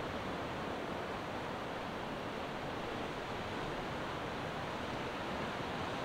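Steady rushing noise of wind and sea, even and unbroken, with no distinct events.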